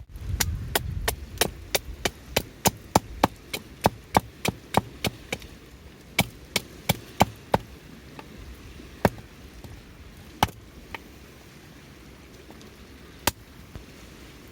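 Rapid series of sharp wooden knocks, about three a second, a short pause, a second brief run, then a few single knocks spaced further apart.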